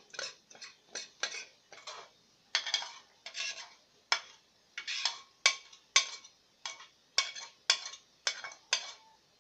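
Metal spoon scraping cooked food out of a frying pan onto a plate, in quick strokes about two a second, some with a faint metallic ring.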